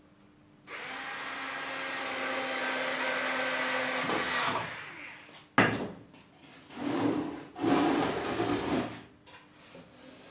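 Homemade disc sander driven by a washing-machine motor, switched on about a second in and running steadily for a few seconds before dying away. A sharp knock follows, then two shorter bursts of rough noise.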